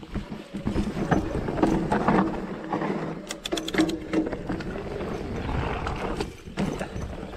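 Mountain bike ridden fast down a dirt forest singletrack: the tyres rumble over the rough ground while the bike rattles, with a quick run of sharp clicks about three and a half seconds in.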